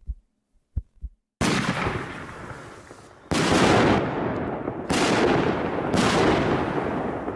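Aerial firework shells bursting, four times: the first about a second and a half in, the others in quicker succession. Each sudden bang is followed by a second or more of noise from the spreading stars that fades away.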